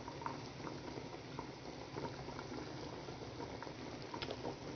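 7-Up and soy sauce braising liquid simmering around a whole chicken in a pot on low flame, bubbling softly with many small scattered pops as it cooks down.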